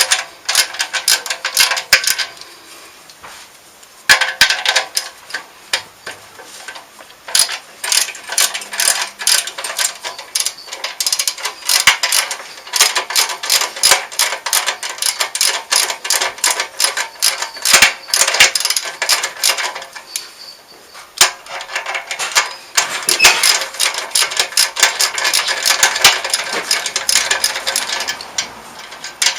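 Socket ratchet wrench clicking in quick runs with short pauses, as the bolts holding a motorcycle silencer are loosened.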